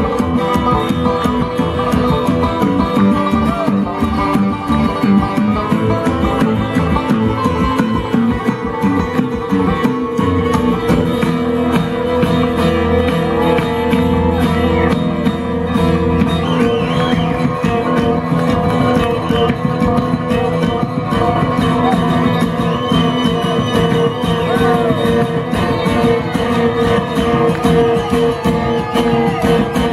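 Live bluegrass band playing an instrumental break, with fast-picked acoustic string instruments over a steady rhythm.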